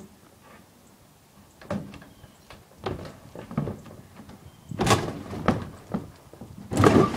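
Old wooden chicken coop being battered and wrenched apart: a run of irregular knocks and bangs on wood, growing louder, with the loudest crash near the end as the big door starts to give way.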